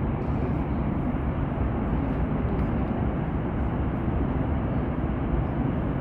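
Steady roar of the Horseshoe Falls: an even rumbling noise, strongest in the low end, with no breaks.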